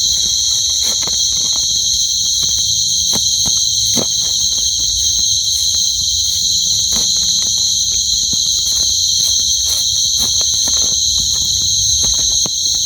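Loud, steady chorus of night insects, a continuous high shrill held on two close pitches, with a few faint clicks and rustles scattered through it.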